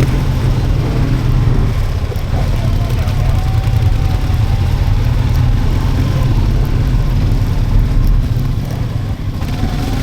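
ATV engine running steadily at a low, even rumble.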